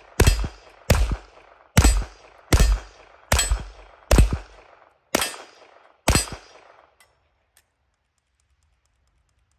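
Masterpiece Arms MAC-10 in .45 ACP, built as a very short rifle, firing eight single shots at a steady pace, each report ringing out briefly. The string stops about six seconds in as the magazine runs dry, followed by two faint clicks.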